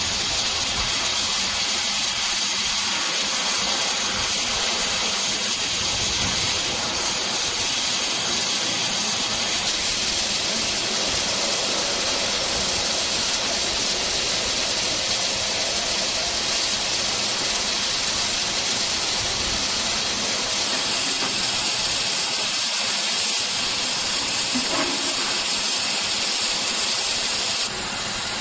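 Steam locomotive letting off steam: a steady, unbroken hiss that drops slightly just before the end.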